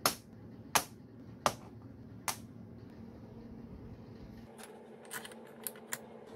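Steel rocker arms set down one by one on a steel workbench: four sharp metallic clacks about three-quarters of a second apart. Near the end come a few lighter metallic clicks of parts being handled.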